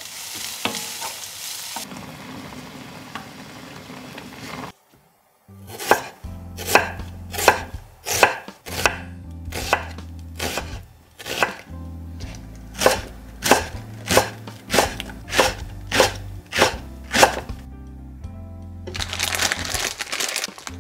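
Kitchen knife slicing an onion thinly on a wooden cutting board: a steady run of crisp cuts, about three every two seconds, with a short pause partway through.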